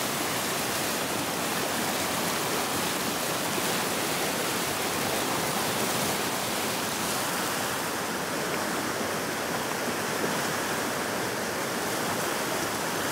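Fast, muddy floodwater rushing over rocks in a creek carrying the overflow from a spilling reservoir: a steady, unbroken rush of water.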